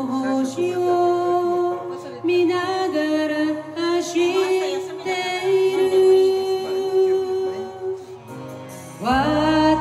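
A woman singing a Japanese song into a microphone over a music backing track, holding a long note in the middle. A short lull comes about eight seconds in before the next phrase starts loudly.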